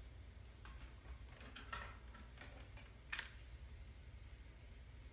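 Quiet handling sounds of a flat iron being worked through short hair: a few faint clicks and rustles, the sharpest a little past three seconds in, over a low steady hum.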